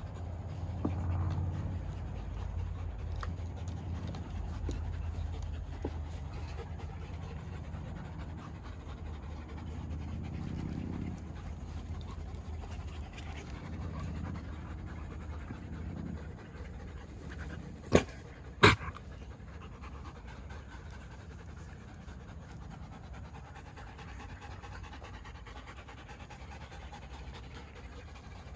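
Wolfdogs panting with open mouths, short of breath from running around. Two sharp clicks, close together, stand out about eighteen seconds in.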